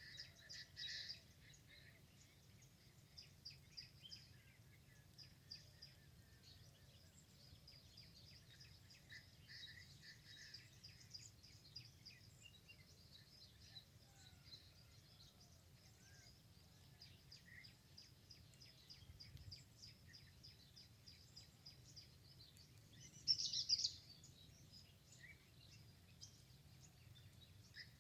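Faint birdsong: many small birds chirping and calling in quick high notes, with a louder flurry of calls about two-thirds of the way through.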